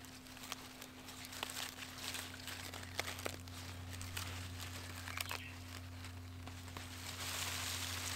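Lettuce leaves rustling and crinkling as a head of lettuce is handled and picked by hand: scattered small crackles at first, then a louder, longer rustle near the end.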